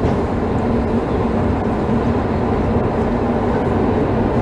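Steady rumbling hum of an underground metro station heard from a moving escalator, with a faint low drone.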